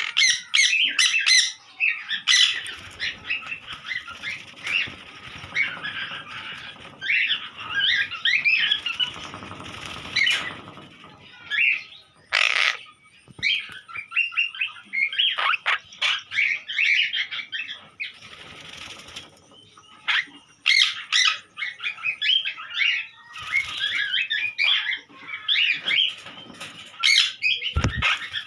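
A colony of sun conures and monk parakeets calling, a rapid, shrill chatter of short squawks that overlap throughout. There is one loud squawk about midway and a dull thump near the end.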